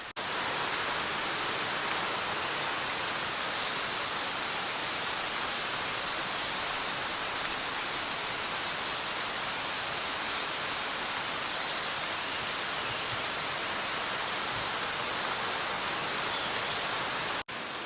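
Waterfall: a steady, unbroken rush of falling water that cuts off suddenly near the end.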